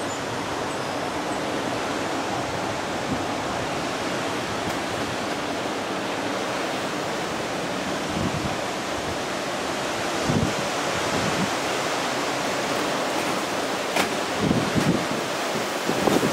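Strong wind from an approaching derecho gust front rushing steadily through trees, with gusts buffeting the microphone from about eight seconds in and more often near the end.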